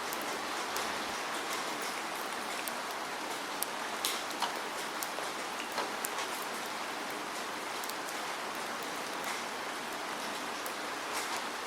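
Steady rain falling, a dense even hiss with scattered sharper drops ticking on a surface.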